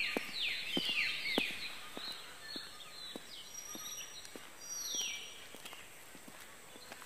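Outdoor ambience with a bird giving a run of descending calls in quick succession at the start and another about five seconds in, over scattered footsteps on stone.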